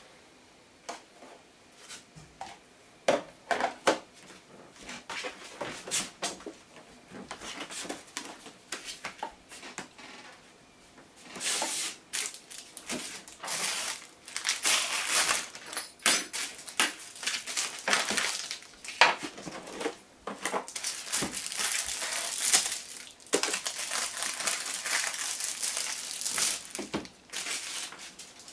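Plastic food packaging crinkling and rustling as it is handled. In the first part there are scattered knocks of a knife and other items set down on the counter and cutting board, and from about halfway the crinkling becomes dense and continuous.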